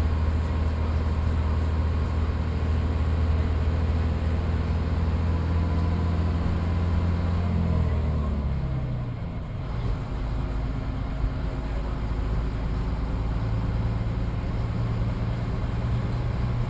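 BMMO D9 double-decker bus's diesel engine running under way, heard from on board. About eight seconds in the engine note falls away and goes briefly quieter, then the engine picks up and pulls steadily again.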